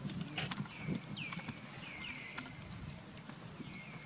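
Repeated short chirping calls, each sliding down in pitch and then holding briefly, about two a second, with a few sharp faint clicks among them.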